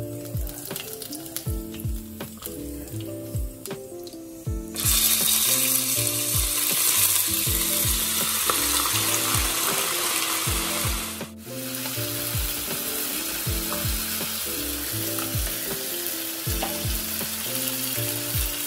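Raw meat pieces frying in hot oil in a pan: a loud sizzle that starts suddenly about five seconds in and keeps going, over background music with a steady beat.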